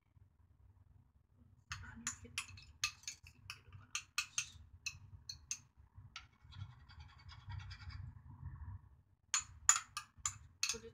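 A utensil scraping and tapping against a small ceramic bowl as thick black sesame cream is scraped out into a pan: a quick run of sharp clicks, a softer scrape in the middle, then more loud clicks near the end.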